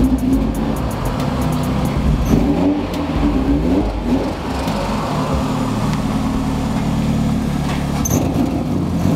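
Mazda Miata's four-cylinder engine running and being revved up and down a few times.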